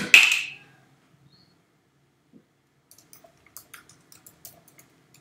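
A short breathy sound at the very start. Then, from about three seconds in, a run of faint, irregular clicks from someone working a computer.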